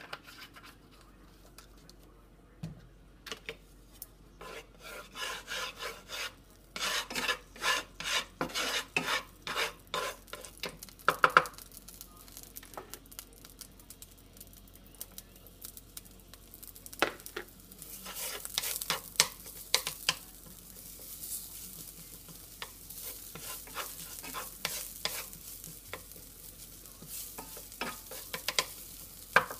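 Wooden spatula stirring and scraping in a nonstick frying pan while chopped garlic sizzles in hot oil, the sizzling coming in about halfway through. In the first half, a run of quick, rhythmic knocks and scrapes.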